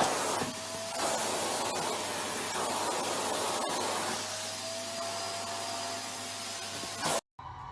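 Steady rushing whoosh of a small appliance motor, with a faint drifting hum, cutting off suddenly near the end.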